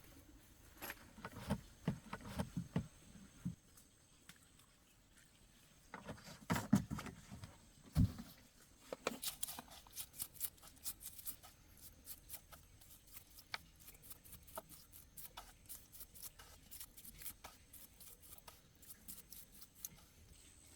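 Hand work on car parts: irregular light clicks and taps, with clusters of dull knocks near the start and one heavier thump about eight seconds in, then a long run of quick, light clicks.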